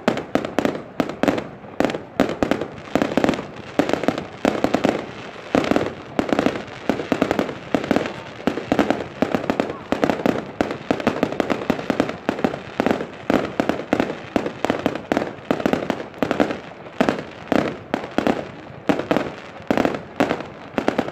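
Aerial fireworks bursting in quick succession: a dense, unbroken run of bangs and crackles, several every second.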